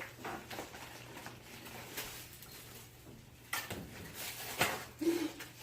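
Rustling and a few sharp knocks as a mailed package is handled, with one brief vocal sound near the end.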